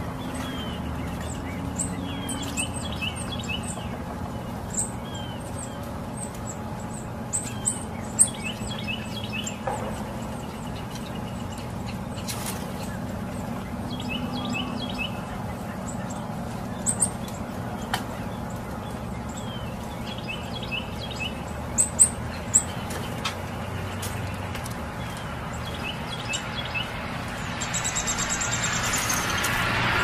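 Small birds chirping in short clusters every few seconds, with sharp high ticks, over a steady low background rumble; near the end a broad hiss builds up.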